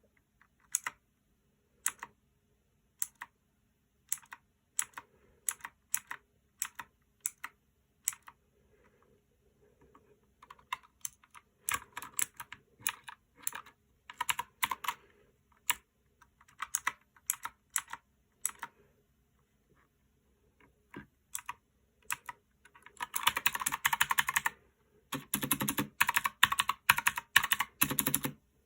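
One Up G300 mechanical keyboard with clicky Outemu Blue switches being typed on: single keystrokes spaced out at first, then quicker runs, and two fast bursts of rapid typing near the end.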